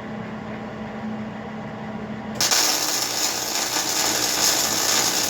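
A steady low hum, then about two and a half seconds in a loud, even hiss from a shop tool starts suddenly and cuts off sharply near the end.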